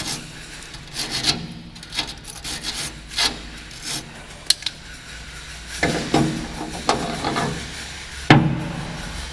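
Hand wire brush scrubbing rust and flaky paint off a steel boat hull around an anode's mounting studs, in irregular scratchy strokes. A sharp knock near the end.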